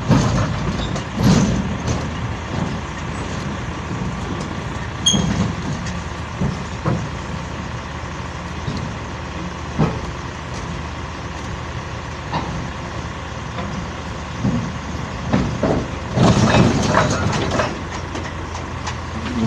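Heavy diesel equipment engine running steadily, with scattered clanks and knocks and a flurry of them near the end.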